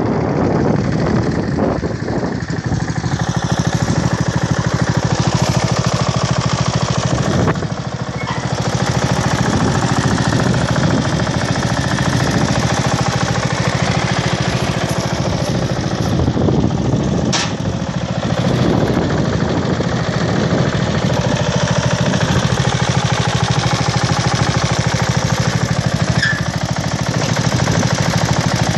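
Lawnflite 604 ride-on mower's engine running steadily with a rapid, even beat, dipping briefly in level about eight seconds in.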